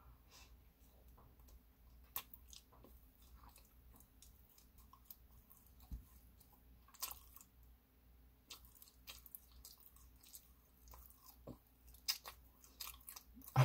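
A person chewing a peanut butter sandwich: faint mouth sounds and small clicks, coming more often near the end.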